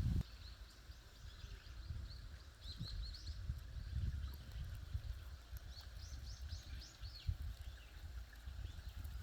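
Small birds chirping in quick runs of short, high notes, twice, over a steady low rumble.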